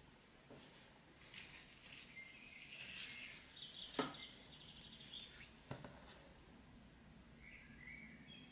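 Faint background chirping of small birds in quick trills, with two soft clicks about four and six seconds in.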